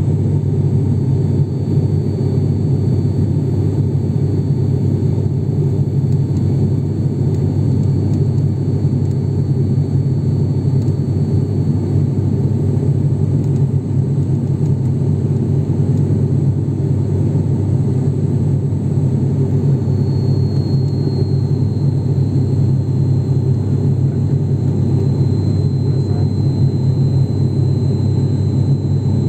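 Cabin noise of an ATR 72-600 turboprop in descent, heard from a seat beside the engine: the propeller and engine give a loud, steady, deep drone. A thin high whine runs above it and drops slightly in pitch about two-thirds of the way through.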